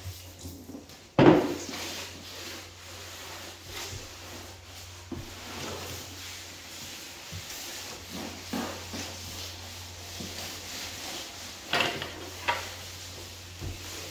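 A rag rubbing stain across bare pine floorboards in repeated wiping strokes, with a loud thump on the wooden floor about a second in and a couple of sharper knocks near the end.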